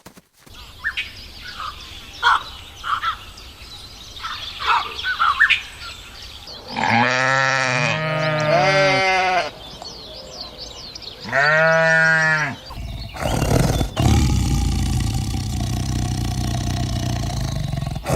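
A farm animal bleating twice in long, pitched calls, after a few short high chirps. A steady low rumbling noise takes over for the last few seconds.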